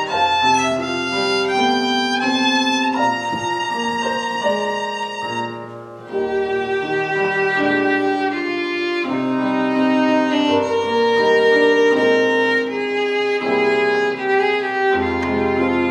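Violin playing a slow melody of held notes over keyboard accompaniment with sustained low bass notes. The music dips briefly about six seconds in, then continues.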